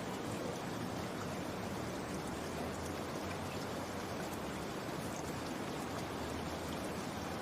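Steady rain falling, an even hiss of water with no thunder or other distinct sounds.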